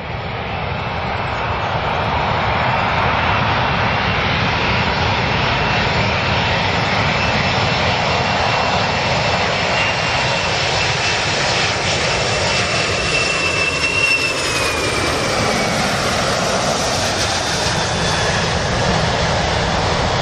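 Boeing 747-400 airliner's four jet engines on landing approach, a steady loud rumble with a thin high whine over it, growing louder over the first couple of seconds. The whine slides down in pitch about two-thirds of the way through as the plane comes past.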